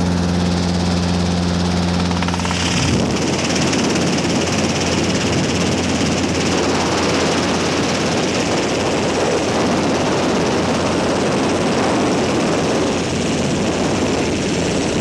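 Helicopter noise heard from on board: a steady low drone of rotor and engine with even pitched tones, which about three seconds in gives way to a rough, loud rushing noise that masks the tones.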